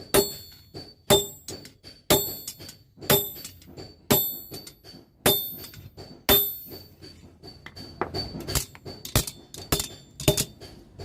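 Blacksmith's hammer striking metal, each blow ringing. The blows come about once a second, then from about eight seconds in they turn quicker and lighter, two to three a second.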